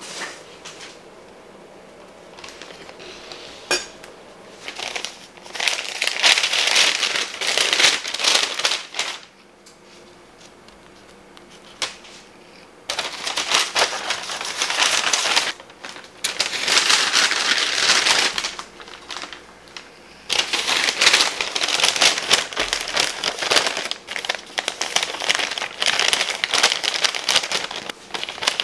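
Brown kraft paper bag rustling and crinkling in several long bouts with short pauses between, as bread slices are slid into it and its top is folded down.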